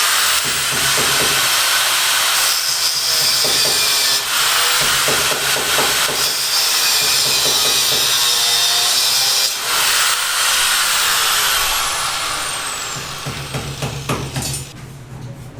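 High-speed electric power tool cutting, its motor spinning up with a rising whine at the start, again about 4 seconds in and about 10 seconds in, then winding down with a falling whine over the last few seconds.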